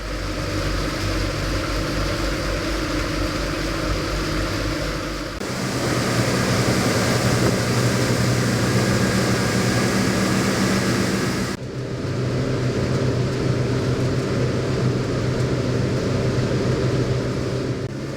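Boat motor running steadily under way, with a rush of wind and water noise; the sound changes abruptly twice, about five and about twelve seconds in.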